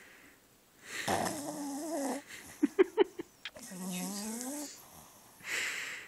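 A black pug–Boston terrier mix (a "bug") snoring loudly in its sleep: two long wavering snores, with a quick run of four or five sharp clicks between them just before halfway, and a breathy snore near the end.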